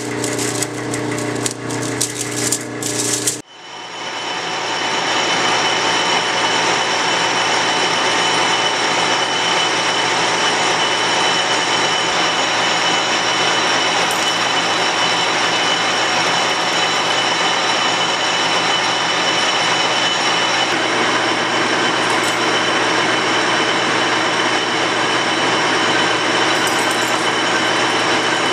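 Metal lathe drilling aluminum, the drill throwing long ribbon chips with an uneven scraping rattle over the machine's hum. About three seconds in this cuts off. The lathe then runs steadily with a boring bar cutting inside the bore of an aluminum spacer: an even hiss with a steady high whine.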